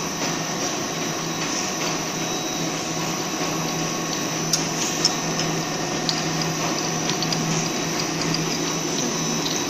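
Twin-screw snack food extruder line running: a steady machine hum, with a few light clicks near the middle.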